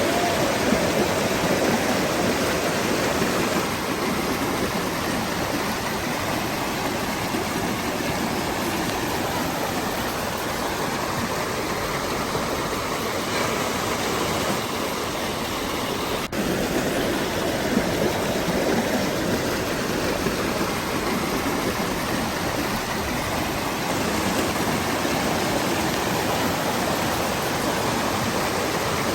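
Waterfall with water rushing steadily over rocks, a constant noisy roar with only small shifts in level.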